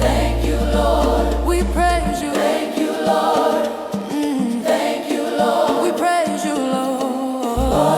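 Afro gospel praise song with a choir singing. A deep bass note is held at first, drops out after about two seconds, and comes back near the end.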